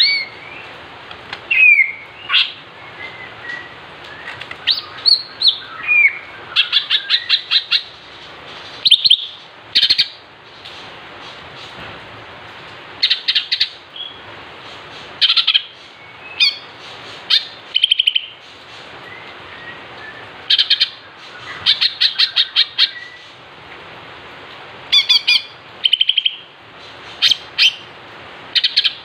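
Male cucak ijo (greater green leafbird) singing in bursts: sharp chirps, short gliding whistles and rapid trills of clipped notes, with pauses of a second or two between phrases.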